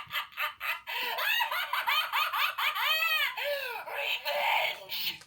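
Chicken clucking: a quick run of even clucks, then from about a second in a string of rising-and-falling cackling calls that stop abruptly near the end.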